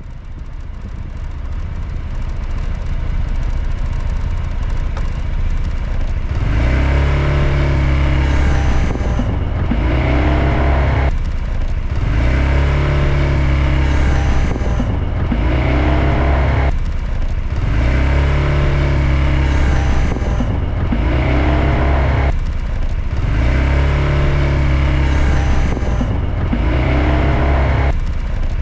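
Honda PCX125 (JK05) scooter's single-cylinder engine pulling away again and again, each time with a brief buzzing whine ('biiin') about two seconds after setting off. The uploader links the whine to the ABS modulator. The pattern repeats about every six seconds.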